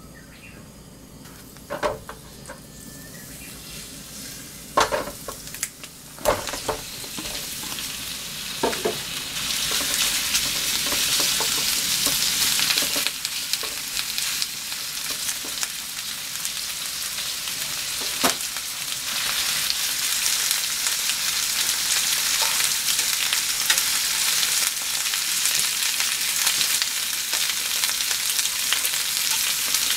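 Chunks of bone-in pork cartilage searing in ginger-garlic oil in a nonstick frying pan: a sizzle that starts faint, builds as the meat goes in over the first several seconds, and stays loud, with a few sharp knocks against the pan.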